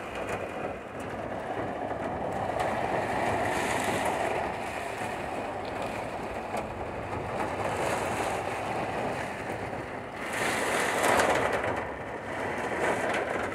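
Heavy rain pounding on the metal body of a Volkswagen Kombi van in a storm, with gusting wind, heard from inside the van. The noise swells louder for a couple of seconds about ten seconds in.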